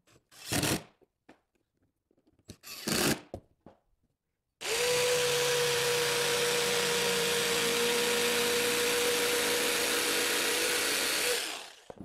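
Electric jigsaw cutting 3/4-inch MDF, running at a steady even pitch for about seven seconds and stopping shortly before the end. Before it, a cordless drill runs briefly, boring a hole in the board.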